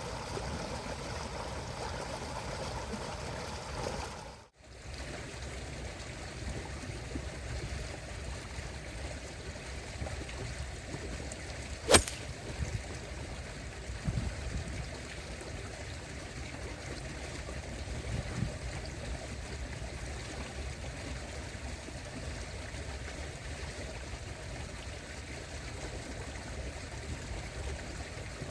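Steady trickling, running water, with one sharp click about twelve seconds in and a couple of faint knocks after it.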